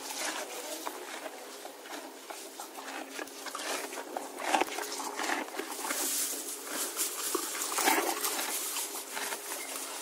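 Horse eating, chewing and munching in a dense, irregular run of crunches and rustling, with a few louder crunches about halfway through and again near the end.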